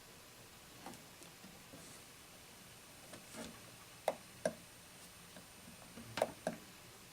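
Scattered sharp clicks of buttons being pressed on a homemade electronic exposure timer, the loudest coming in pairs about half a second apart near the middle and near the end.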